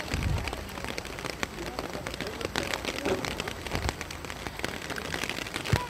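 Light rain pattering close to the phone's microphone, a dense run of small ticks, with faint voices in the background.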